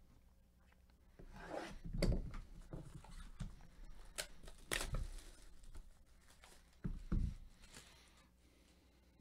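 Plastic shrink wrap being torn and peeled off a sealed trading-card hobby box, crinkling, with a few sharp snaps in the middle. A couple of low thumps come about seven seconds in.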